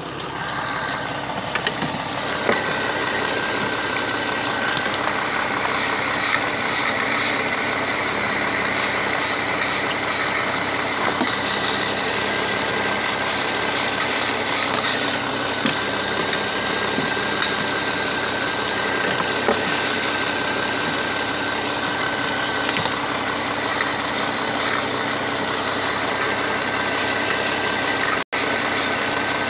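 Car engine idling with the air intake removed, drawing air in through the open throttle body as water is misted into it. It sounds a little like it is misfiring, which the owner puts down to the air filter being off the throttle body.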